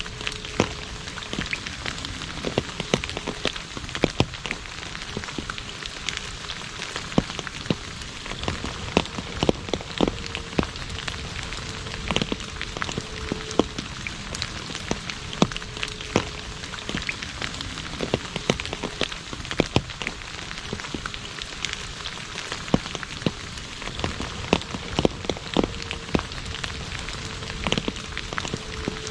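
Steady rain falling on an asphalt road: a constant hiss of rain with many irregular, sharp drop taps scattered through it.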